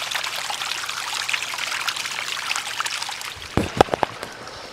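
Water trickling and splashing down a wet rock face, with many small droplet splashes, fading about three seconds in. A few sharp knocks follow near the end.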